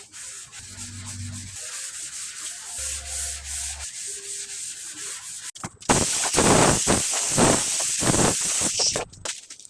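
Sandpaper rubbing over cured body filler on a car body panel in repeated strokes. The rasping is faint at first and much louder for about three seconds in the second half.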